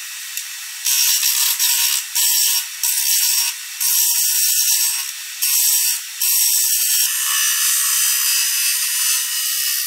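Gouge cutting a spinning segmented walnut-and-resin bowl blank on a wood lathe, a harsh scraping cut. It comes in a run of passes about a second long with short breaks from about a second in, then settles into one long continuous cut from about six seconds in.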